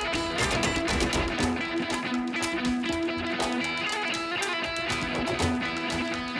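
Background music with guitar: an electric guitar track with a steady strummed rhythm.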